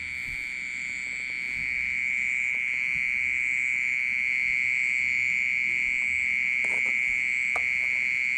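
Loud, continuous high-pitched ringing drone from an unseen creature hidden in a flower pot. It holds one steady pitch rather than chirping like a cricket, and sounds like a water pump. It grows a little louder about two seconds in.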